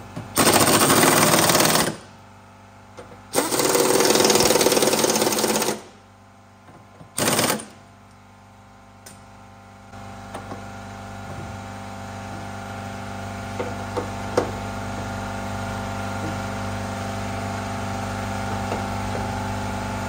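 Air impact wrench hammering on bolts under the transmission in three bursts: about a second and a half, then about two and a half seconds, then a short blip. After that a steady hum with a few light clicks.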